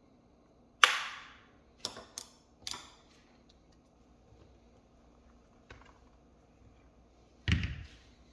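Sharp clicks and taps of hard objects being handled: a loud click about a second in, three lighter clicks over the next two seconds, then a heavier knock with a low thud near the end.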